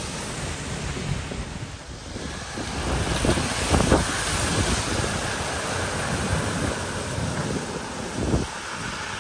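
Vehicles driving through deep floodwater over a ford, their wheels throwing up heavy splashing spray, over the steady rush of water flowing across the road. The loudest splash comes a little under four seconds in, with another surge near the end.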